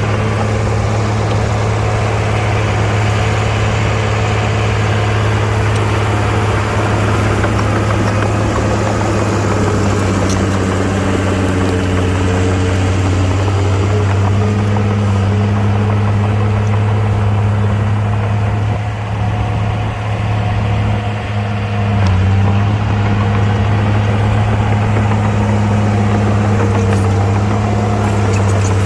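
Komatsu mini bulldozer's diesel engine running steadily with a low hum; it eases off briefly about two-thirds of the way through, then picks up again a little louder.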